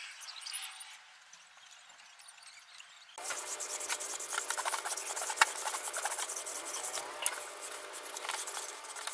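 Faint hiss of the hot steel blade cooling in quench oil. About three seconds in this gives way to a steady gritty scraping as the flat of the blade is rubbed back and forth on a wet whetstone, with a couple of sharp clicks.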